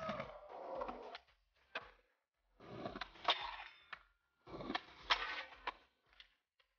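Skateboard sounds: three short bursts of wheels rolling on hard ground, each with sharp clacks and knocks, separated by silence.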